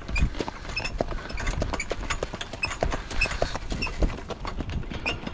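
Horse hoofbeats at a steady gait, about three to four hoof strikes a second.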